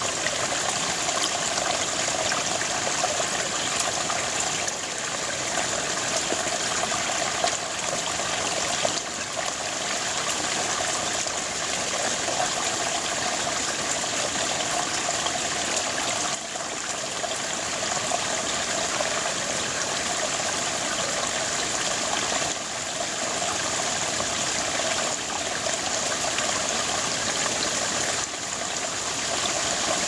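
Small, shallow rocky brook babbling and trickling over stones, a steady, unbroken rush of water.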